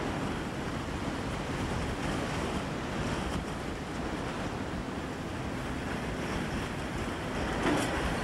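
Howling wind of a dust storm blowing without a break and buffeting the microphone, a constant rush of noise with no engine or voice standing out.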